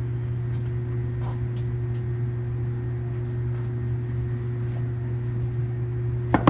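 A steady low hum with a constant higher tone over it, plus a few faint clicks and one sharp click near the end.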